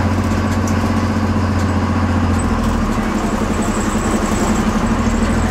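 Diesel engine of an MSRTC bus running at low speed, heard from inside the front of the bus as a steady low drone.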